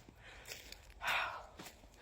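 A breathy exhale, like a sigh, about a second in, among soft footsteps on a path.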